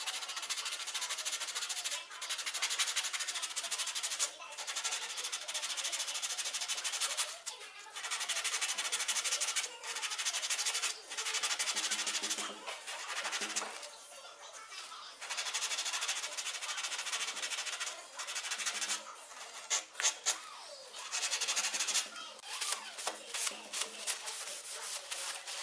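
Hand sanding with sandpaper over a wood-putty repair on a table corner: a run of rasping strokes, each a second or two long, with short pauses between them.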